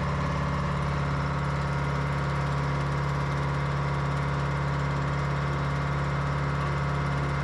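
Pettibone PM245 wheel loader's engine running steadily during a transmission pressure test, a constant unchanging hum.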